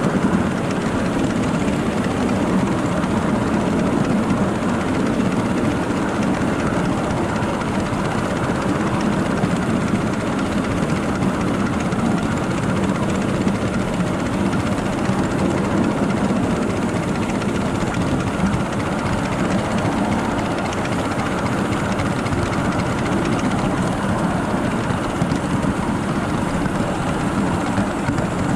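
A 7.5-inch gauge miniature railroad train rolling steadily along the track, its wheels making a continuous low rumble on the rails.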